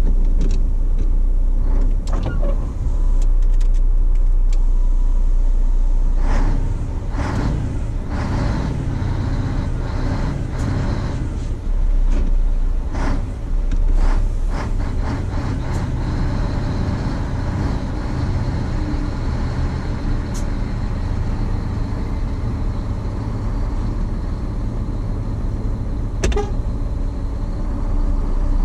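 Scania truck's diesel engine running as the truck sets off, a steady low rumble that is loudest for the first few seconds. A run of sharp clicks and knocks comes through in the middle stretch.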